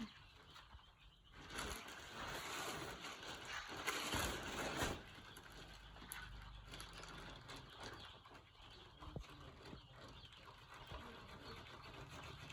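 Day-old broiler chicks faintly cheeping in a brooder. A louder, noisy rustle runs from about one and a half to five seconds in.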